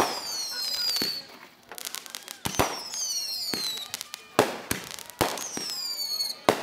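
Aerial fireworks going off: sharp bangs from launches and bursts about once a second, with shrill whistles between them that slide downward in pitch.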